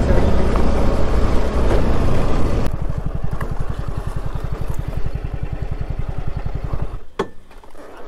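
Motorcycle engine running along with wind noise. About three seconds in it drops to an idle with an even, rapid low put-put, and about seven seconds in it is switched off, followed by a single click.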